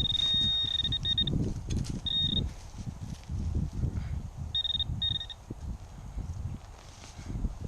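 Metal detector giving short, steady high-pitched beeps in bursts, sounding off on a shallow buried target that the detectorist reads as a pull tab. Low, irregular scraping and handling noise runs underneath.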